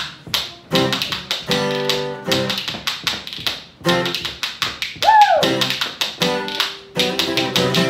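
Spoons played in a quick clicking rhythm over a strummed acoustic guitar. About five seconds in, a short high tone slides downward in pitch.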